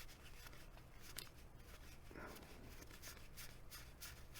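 Faint rustling and soft ticks of baseball cards being flipped through and slid off a stack by hand, with a sharper tick about a second in.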